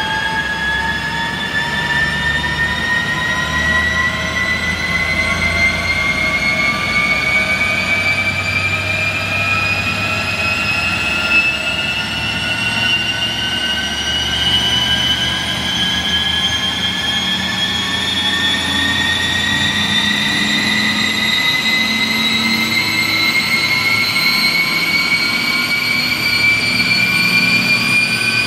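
Vauxhall Astra 1.4 running on a four-wheel-drive rolling road during a power run: a high whine from the tyres, rollers and drivetrain climbs slowly and evenly in pitch as road speed builds, over the engine's low drone.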